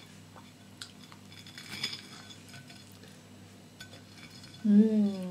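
Faint light clicks and scrapes of a metal fork on a plate as banana fritters are cut. Near the end a person's voice sounds loudly, its pitch falling.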